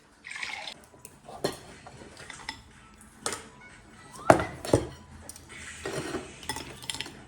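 Plates and cutlery clinking and knocking at the table during a meal, in scattered separate strikes, the sharpest two close together a little over four seconds in.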